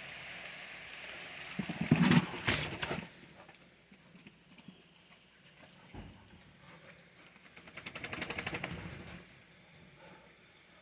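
Dogs moving about close by: two short bouts of pattering and scuffling, a louder one about two seconds in and another around eight seconds.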